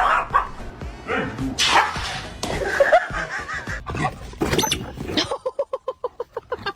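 Dog growling and snarling in short noisy bursts, followed near the end by a quick run of short pulsed sounds.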